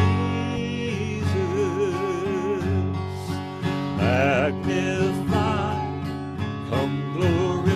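Slow worship song sung over strummed acoustic guitar, with one voice holding a long note with vibrato about a second in.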